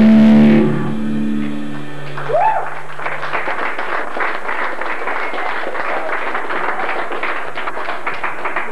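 Electric guitars and band end a song: the final chord cuts off about half a second in and its ringing fades over the next couple of seconds. Then the audience claps, with a single rising whoop just before the clapping builds.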